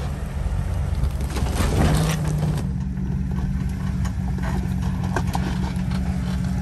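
Jeep Cherokee engine running steadily at low revs under load as it crawls over boulders, with scattered clatter and knocks of tyres and rock and a louder noisy stretch about two seconds in.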